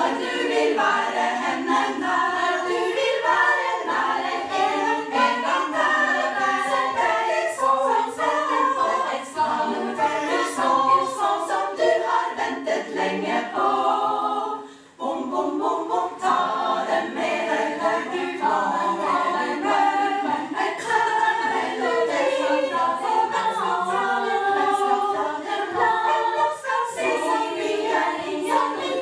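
Women's choir singing in Norwegian, many voices together, with a short break about halfway through before the singing resumes.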